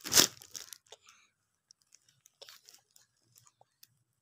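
Packaging crinkling as a parcel of clothes is unpacked: one loud rustle at the start, then faint scattered rustles and clicks.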